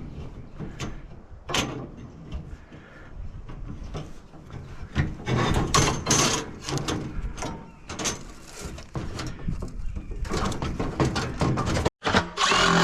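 Knocks, clatter and scraping of sheet-metal heater parts being handled and pulled apart by hand. The handling gets busier about five seconds in.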